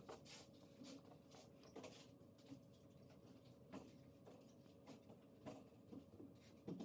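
Faint scattered clicks, taps and scratchy rubs as fingers handle a stainless-steel wristwatch and press its side pushers, over near silence.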